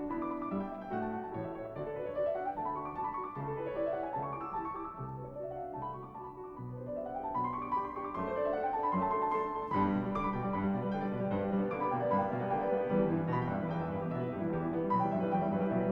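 Background piano music playing repeated rising runs of notes, a little louder from about two-thirds of the way in.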